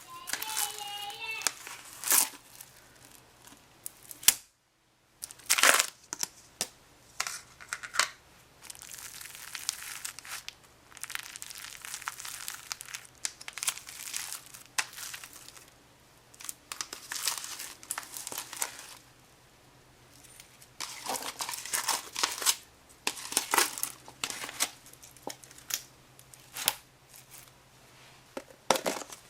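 Old, dried-up crunchy slime being squeezed and pulled by hand, giving irregular crackles, crinkles and small pops.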